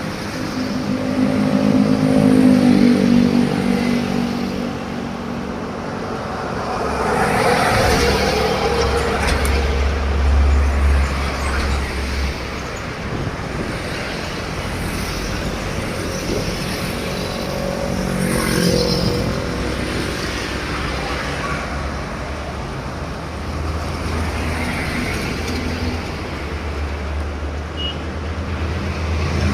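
Heavy trucks passing by one after another on a road: engine and tyre noise swelling and fading several times, loudest about two seconds in and again around eight to eleven seconds.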